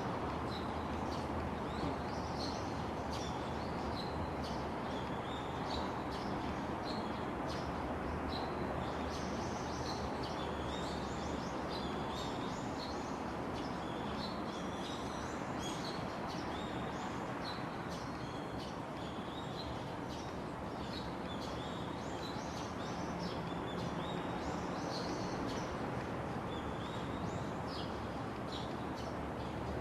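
Small birds chirping over and over, many short high calls overlapping, against a steady background noise.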